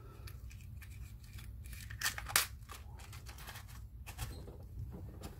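Hands handling a small clear plastic parts box and accessories in a hard plastic pistol case: a few light plastic clicks and taps, the sharpest about two and a half seconds in, over a steady low hum.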